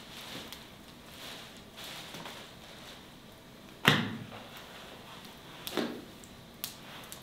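Three sharp knocks of something hard being set down or struck, with soft rustling of handling between them. The loudest knock comes about four seconds in, and two lighter ones come near the end.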